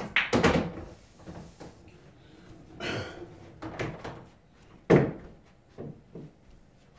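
A string of knocks and clacks from handling balls and cue around a pool table, with a short rolling slide about three seconds in; the sharpest knock comes about five seconds in.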